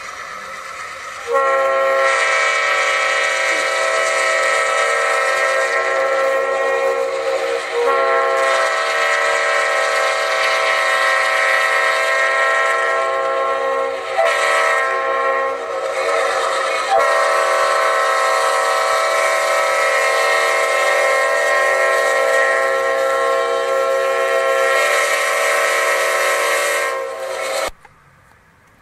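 Leslie multi-chime locomotive air horn sounding a long chord of several notes, coming in about a second in over train noise. It breaks briefly about 8 seconds in and again around 15 seconds, sounds on, then cuts off sharply near the end.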